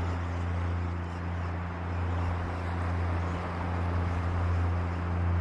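A steady, low engine-like drone holding one pitch with a few overtones, over an even hiss of water and wind.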